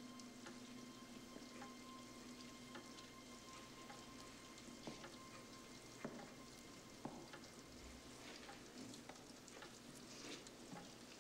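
Near silence: a faint crackling hiss, with a low held note of music fading out in the first few seconds.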